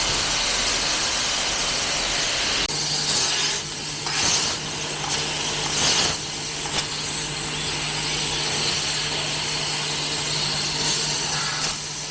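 CNC fiber laser tube cutting machine at work: a steady hiss of cutting, with a steady machine hum joining about three seconds in and a few brief louder flares.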